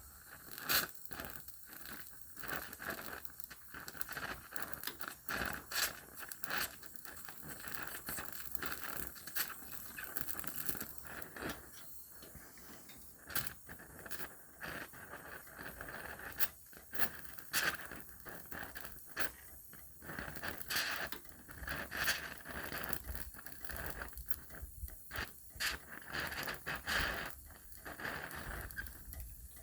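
Welding on a car's sill panel: a steady hiss broken by irregular crackling and sharp pops as the weld is laid.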